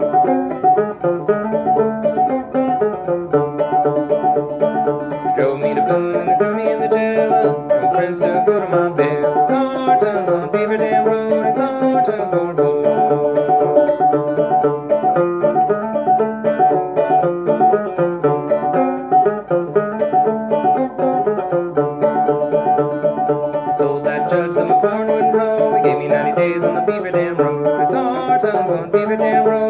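A c.1891 A.C. Fairbanks "Fairbanks and Cole" banjo played clawhammer style with a thumb lead: a steady run of plucked melody notes and downstroke brushes on an old-time tune.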